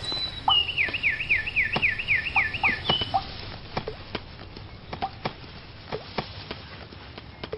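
A bird calling a fast series of about ten falling whistled notes, about four a second, over the first three seconds, followed by scattered short chips and clicks.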